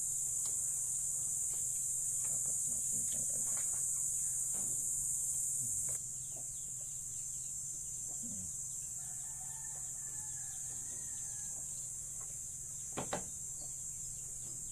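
Steady high-pitched insect chorus of crickets, dropping a little in level about six seconds in, with a faint rooster crowing about nine seconds in. Two sharp clicks near the end.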